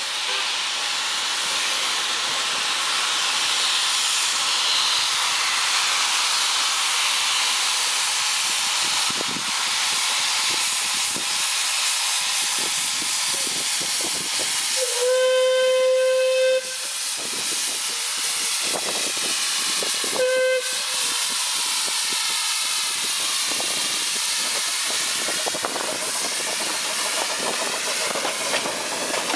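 Narrow-gauge steam locomotives working a double-headed train, the 1877 De Winton vertical-boiler 'coffee-pot' Chaloner among them, with a steady loud steam hiss. A steam whistle gives one long blast about halfway through and a short blast some five seconds later.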